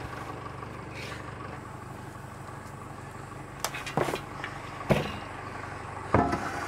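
Pitchfork and shovel working matted hay: a few sharp scrapes and knocks of the tools in the second half, the loudest about six seconds in, over a steady engine hum.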